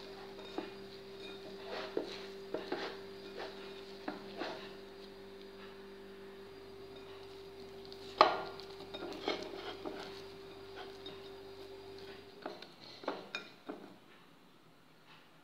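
Hands kneading crumbly semolina dough in a speckled enamel bowl: scattered knocks and scrapes of hand and dough against the bowl, the sharpest about eight seconds in. A steady low hum runs underneath and stops about twelve seconds in.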